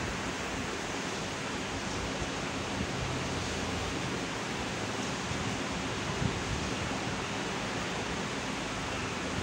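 Steady rushing background noise with a faint low hum underneath.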